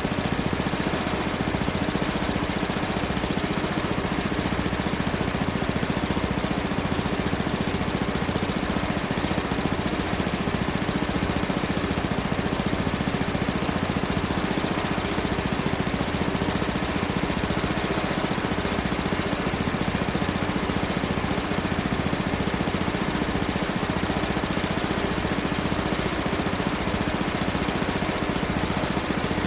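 An engine running steadily at an even, unchanging level.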